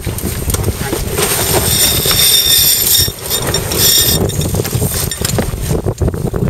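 Wind buffeting the microphone and water rushing along the hull of an Impala 28 sailing yacht under way. A high rattling whir comes in about a second in for roughly two seconds and briefly again near four seconds.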